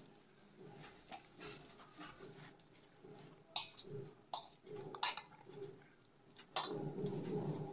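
Hands mashing and mixing boiled potatoes with chopped coriander in a steel plate: irregular soft squishing and scraping against the metal, with light clinks of bangles, busier and louder near the end.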